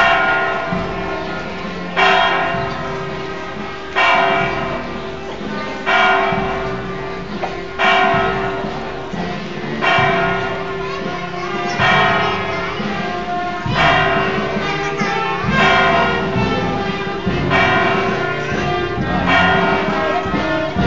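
Church bell tolling, struck about once every two seconds, each stroke ringing on and fading into the next.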